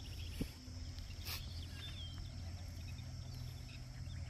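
Riverside ambience of small birds chirping and insects calling, over a steady low rumble. There is a sharp click about half a second in and a brief hiss just over a second in.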